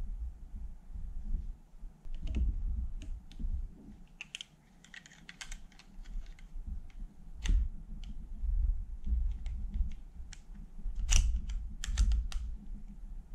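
Irregular small metal clicks and rattles from a Walther P22 pistol's slide and frame being handled and fitted together, over dull handling bumps. A quick cluster of sharper clicks comes near the end.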